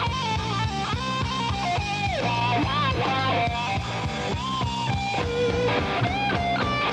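Live rock band playing: an electric guitar plays a lead line with bent notes and vibrato over drums.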